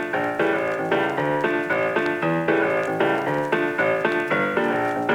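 Background music: a piano-like keyboard playing a steady run of notes, about three a second.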